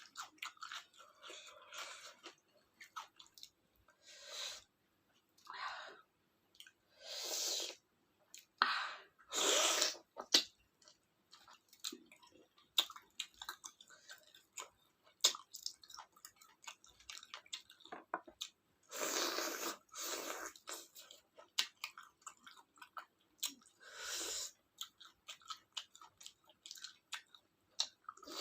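A person eating rice and curry with close-miked chewing: many wet mouth clicks and smacks, broken by several louder noisy bursts about a second long.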